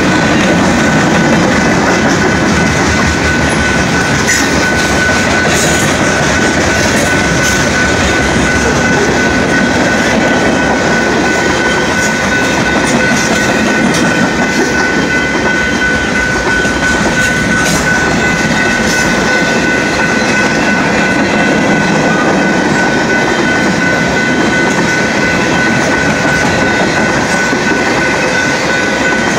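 Freight train of tank cars rolling steadily through a grade crossing, wheels clicking over the rail joints. The crossing warning bell rings steadily as a high tone over the rumble.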